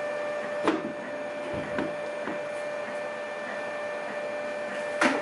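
Handling noises: a sharp click about a second in, a few soft knocks, and a louder double click near the end. Under them runs a steady electrical hum with a faint whine.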